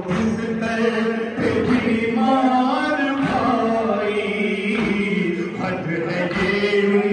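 Shia noha (mourning lament) chanted by male voices, a lead reciter with a crowd of men singing along in chorus, with low chest-beating (matam) thumps about every second and a half.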